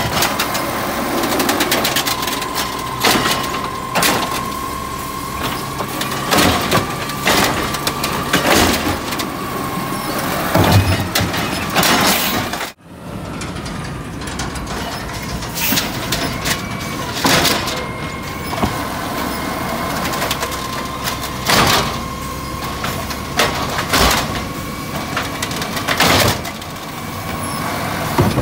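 Natural-gas automated side-loader garbage truck at work: its lift arm grips and dumps yard-waste carts over a steady whine from the hydraulics, with repeated sharp knocks and bangs of cart and arm. The truck's engine runs underneath.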